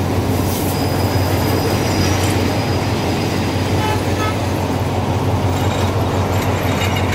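Commuter train passenger coaches rolling slowly past at close range as the train comes into a station: a steady rumble of wheels on rail with a low hum, and a few brief faint high squeals.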